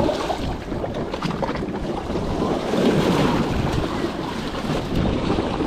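Water washing and splashing against wooden pilings close to the microphone, a steady rushing, with wind buffeting the microphone.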